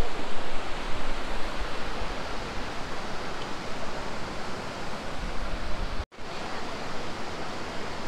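Steady rush of river water pouring over rocks below a tall waterfall: an even hiss with a low rumble underneath. It cuts out for an instant about six seconds in.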